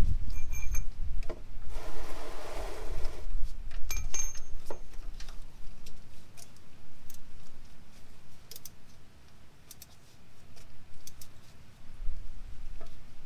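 Metal clinks of a three-prong adjustable oil filter wrench on a spin-on engine oil filter as it is fitted and turned, with a short scraping rustle about two seconds in. Then scattered small clicks and taps as the filter is loosened by hand.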